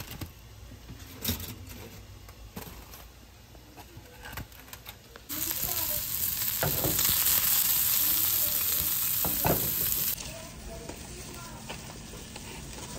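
Sausage links sizzling loudly in a frying pan. The sizzle starts suddenly about five seconds in and stops abruptly about five seconds later. Before and after it come quieter clicks and knocks of handling.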